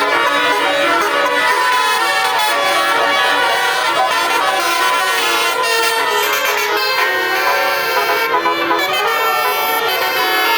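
Multi-tone "telolet" air horn on an Eka bus, blaring a rapid string of sustained horn notes in a tune.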